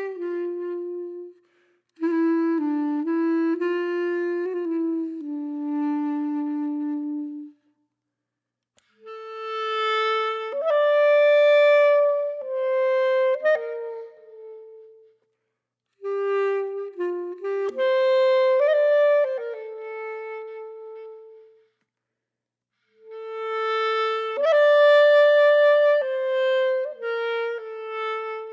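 Background music: a slow solo woodwind melody, clarinet-like, played in phrases of a few seconds separated by short silences.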